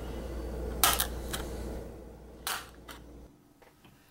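Scissor points stabbing through plastic wrap stretched over a glass bowl: three sharp pops, about a second in, half a second later and again near the middle, over a low steady hum that stops about three seconds in.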